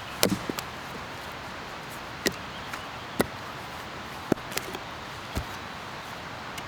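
Axe splitting firewood: five sharp strikes about a second apart, the first the loudest.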